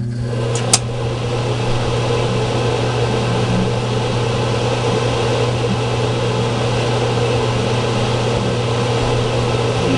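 Ducted Duo-Therm RV furnace starting up: its single motor drives both the combustion-air inducer fan and the duct blower. It comes on with a click and settles into a steady low hum and rush of air.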